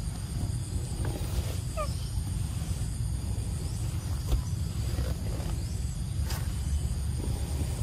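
A short squeaky call, about two seconds in, from a young macaque, over a steady low rumble and a constant high whine; a few faint clicks follow later.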